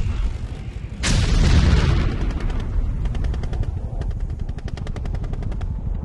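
Battle sound effect of continuous gunfire: a rapid low pounding throughout, a heavy blast about a second in, then a fast machine-gun burst in the second half.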